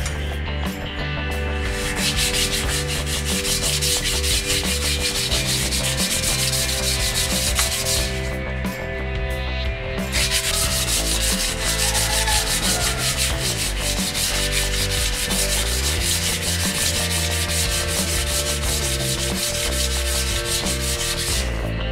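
120-grit sandpaper rubbed by hand over the rusty edge of a steel disc brake rotor: a steady scratching that stops for about two seconds near the middle, then carries on. It is the sound of rust being sanded off the rotor's edge.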